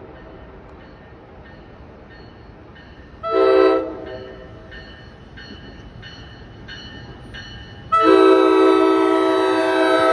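NJ Transit commuter train's horn sounding a multi-note chord for a grade crossing: a short blast about three seconds in, then a long blast from about eight seconds in. This is the close of the long-long-short-long crossing signal. Between the blasts a crossing warning bell dings faintly, about three times a second.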